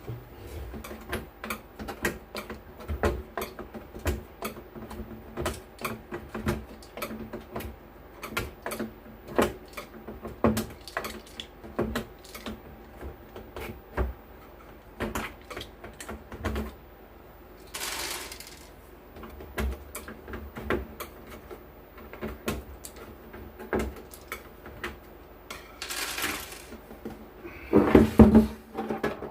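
Many small irregular clicks and knocks of screws, tools and metal parts being handled as the audio mixer is taken apart, with a few brief scraping sounds, the loudest near the end.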